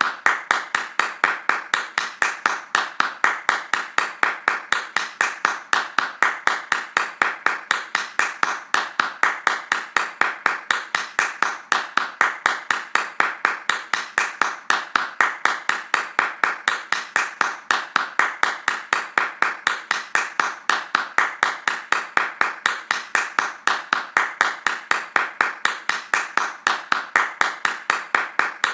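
Hand clapping in a fast, steady rhythm, about four claps a second, with no break.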